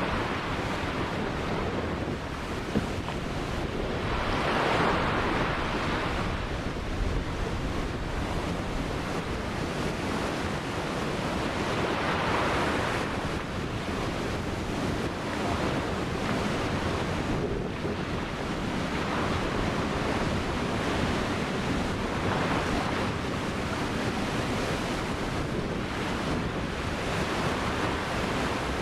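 Ocean surf: waves breaking and washing up the shore, the wash swelling and easing every several seconds, with a low rumble of wind on the microphone.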